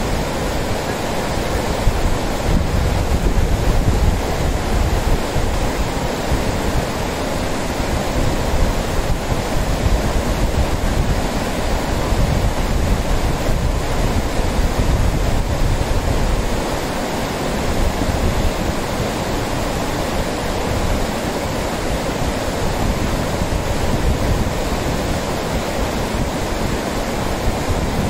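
Lidder River rushing over shallow rapids and a wide bed of stones, a steady noise of fast water. Wind buffets the microphone in uneven gusts underneath.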